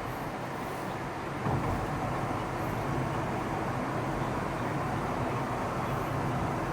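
Steady rumbling vehicle noise that gets a little louder about a second and a half in.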